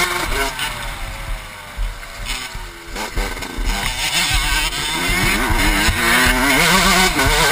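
Motocross bike engine, heard from the rider's helmet over wind rush, revving up and down. Its note falls away in the first half as the rider backs off into a bend, then climbs and wavers, louder, from about halfway as he gets back on the throttle.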